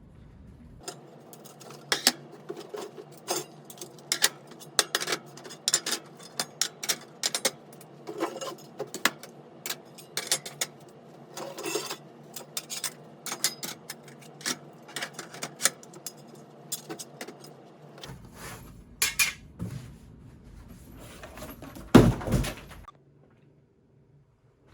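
Clattering of plastic fire alarm speaker units (E90 speakers) being handled and knocked together while taken out of a box: many sharp clicks and knocks in quick succession. A single much louder thump comes near the end.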